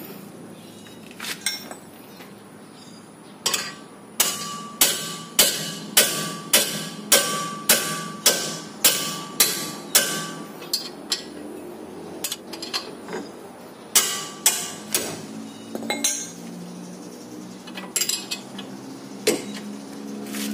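Steel tools striking metal at the front brake caliper: a run of about a dozen sharp, ringing knocks, roughly two a second, starting a few seconds in. They are followed by a handful of scattered knocks and clinks.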